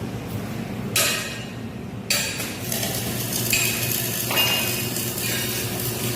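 Steel workpieces clanking and scraping during metal fabrication: several sharp metallic hits, each trailing off in a second or so of high scraping noise, over a steady low hum.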